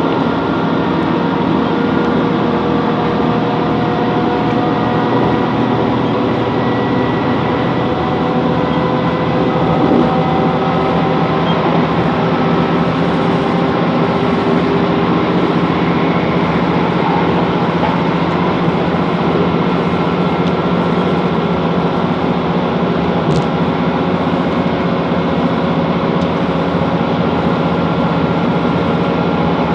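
Class 165 Networker Turbo diesel multiple unit running at line speed, heard from inside the carriage: a steady engine and transmission drone with several faint tones that drift slowly in pitch, over continuous wheel-and-rail rumble.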